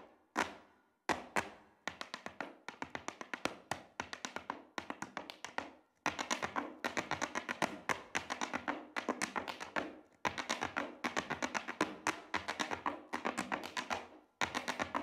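Irish dance hard shoes striking the stage in fast, rhythmic runs of sharp taps, several a second. The taps come in phrases of about four seconds, with short breaks about a second in, around six and ten seconds in, and near the end.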